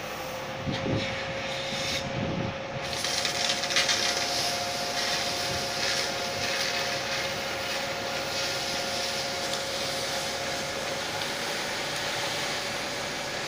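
Fire engine running at the scene with a steady drone and a thin steady whine from its engine-driven pump, joined from about three seconds in by the hiss of a hose's water jet on the burning fire.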